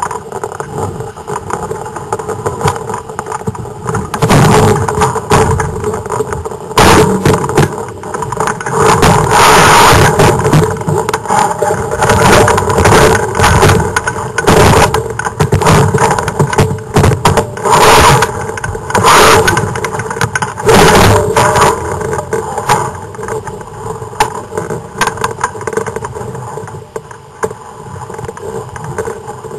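Wind rushing over a camera microphone mounted at the top of a sailing dinghy's mast, in loud gusty rushes through most of the middle stretch and easing off near the end.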